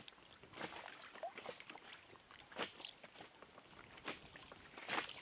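Faint, irregular lapping and slapping of small waves against an inflatable boat's hull.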